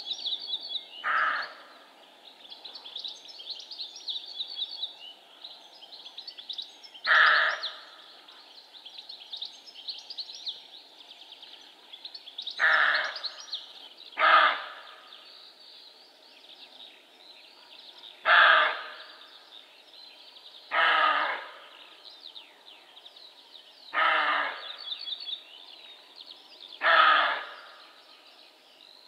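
Male roe deer (Capreolus capreolus) barking: eight short, harsh single barks, irregularly spaced a few seconds apart. Continuous birdsong chirps behind them.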